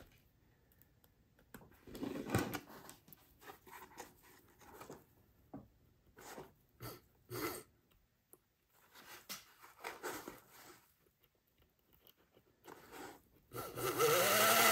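Small electric motor of an HO-scale Model Power 0-4-0 steam locomotive on a test cradle, running only fitfully: scattered short crackles and clicks for most of the stretch, then near the end a steady whine that rises and falls again in pitch as the motor briefly spins up.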